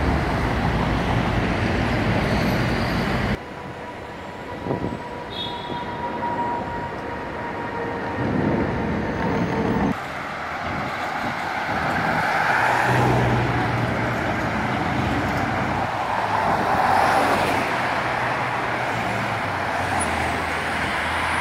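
Busy city street traffic: cars, vans and buses driving past on a multi-lane road, a steady rush of engines and tyres. Vehicles swell louder as they pass close by around thirteen and seventeen seconds in. The background changes abruptly about three seconds in and again about ten seconds in.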